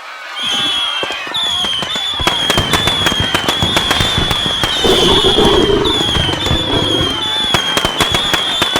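A long string of firecrackers going off in a dense, rapid crackle of pops, with a high-pitched tone sounding again and again over it, about once a second.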